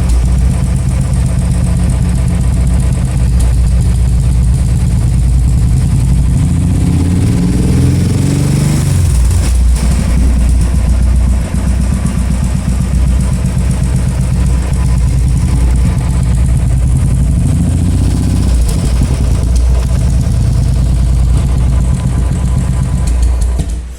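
Royal Enfield single-cylinder engine idling through an aftermarket silencer. It is revved up about seven seconds in, drops back to idle around nine and a half seconds, and gets a smaller blip near nineteen seconds.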